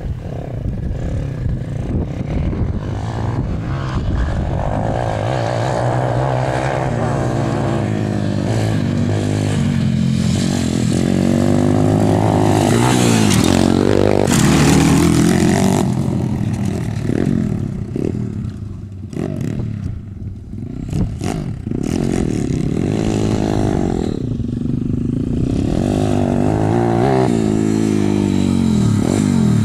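Motocross dirt bike engines revving hard and easing off, their pitch rising and falling as the bikes ride the track and take jumps. The loudest moment comes about halfway through, as a bike passes close and goes over a jump.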